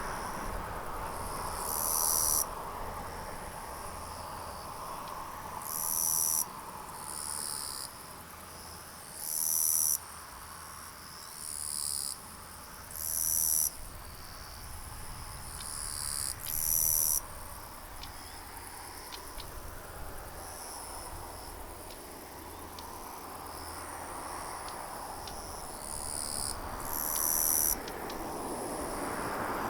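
Insects calling outdoors in short high-pitched bursts every few seconds, over a steady background rush that dies down and then swells again near the end.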